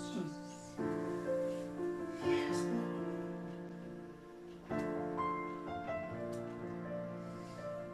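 Roland electronic keyboard playing slow, sustained worship chords, with a new chord struck about a second in, again about two seconds in and near five seconds.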